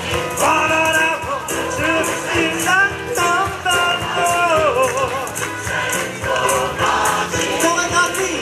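Gospel choir singing live with a male lead voice on microphone, over a steady bass and a regular shaker-like hand-percussion beat.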